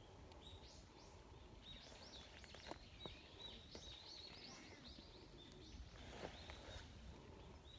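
Quiet outdoor background with small birds chirping, short high chirps coming in loose runs throughout, and a few faint clicks.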